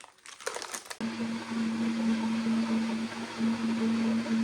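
Electric blender switched on about a second in, its motor running steadily with a hum as it blends a smoothie. A few faint clicks come before it starts.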